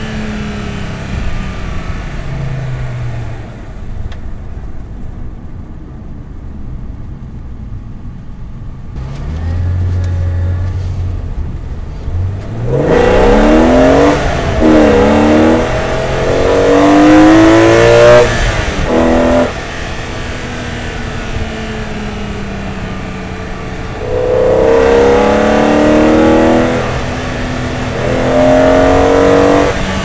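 BMW E46 M3's S54 straight-six breathing through an Eventuri carbon-fibre intake, heard from inside the cabin. It slows and runs quietly at first, then about a dozen seconds in it accelerates hard, revs rising steeply, dropping at a gear change and climbing again, before cutting off sharply as the throttle is lifted. Near the end it pulls hard again through another shift.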